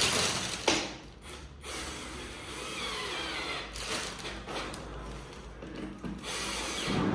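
Office chair being assembled with a cordless drill: rubbing and rustling of the parts and their plastic wrap, with the drill whirring at the chair's base.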